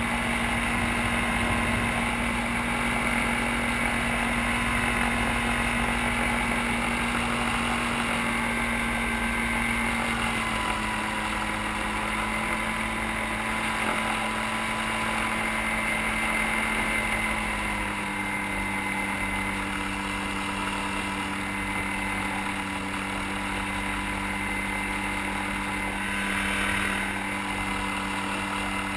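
Gyrocopter's engine running steadily as it taxis on the ground, its pitch stepping down twice: about a third of the way through and again a little past halfway.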